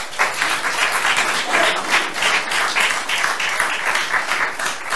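Audience applauding, a dense patter of many hands clapping at an even level.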